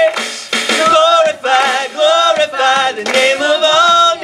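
Live worship band song: voices singing several short phrases with a wavering pitch, over the band's music.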